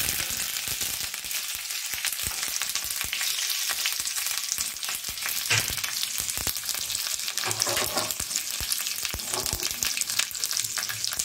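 Fresh curry leaves sizzling in hot oil with mustard seeds and chana dal in a small iron pan, a dense hiss with many sharp crackling pops: a South Indian tempering being fried.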